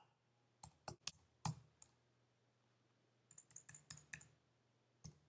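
Quiet, irregular clicks: a few spaced out at first, then a quick run of them, then one more near the end, over a faint steady low hum.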